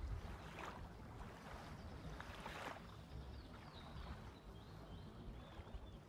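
Small wind-driven ripples lapping softly at a lake shore, with a few gentle surges, over a steady low rumble of wind on the microphone.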